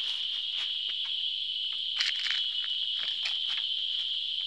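Insects in the forest keeping up a steady, high-pitched buzz, with scattered short crackles and clicks, the loudest about two seconds in.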